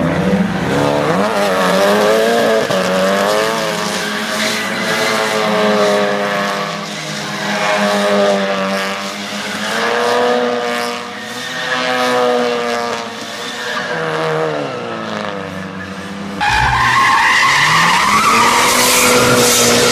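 Mitsubishi Lancer Evolution's turbocharged four-cylinder engine revving up and down again and again while the car drifts, with tyres skidding and squealing. About three-quarters of the way through, the sound cuts abruptly to another Evo's engine, louder and held at high revs.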